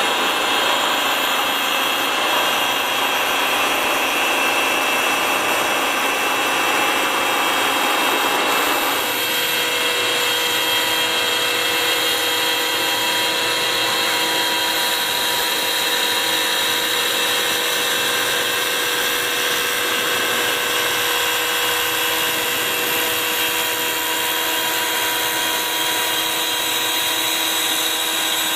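YN1530 CNC wood turning lathe running, its cutter shaving a spinning wooden blank into a turned spindle: a steady machine whine over the hiss of cutting wood. About nine seconds in the rougher cutting noise drops away and the steady whine stands out more.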